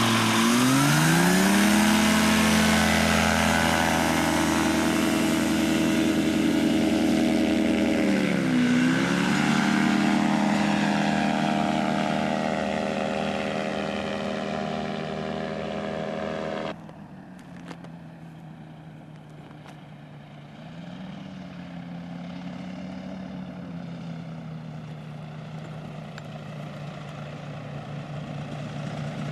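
Engine and propeller of a powered hang glider trike, throttled up and running hard as it takes off and climbs, its pitch dipping once and recovering. About halfway through the sound cuts suddenly to a fainter, more distant engine note that grows louder near the end.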